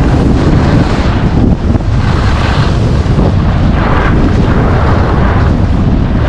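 Heavy wind buffeting on a GoPro's microphone as a skier descends at speed, with two swells of hiss from the skis carving on groomed snow, about two and four seconds in.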